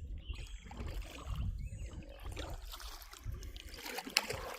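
Kayak paddling against a fast current: paddle strokes splashing and water dripping, over a low rumble, with a sharp knock about four seconds in.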